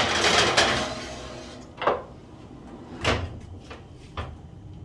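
Metal cake tin scraping as it slides across the oven's wire rack, then a few knocks as the rack goes in and the oven door is shut, the loudest about three seconds in.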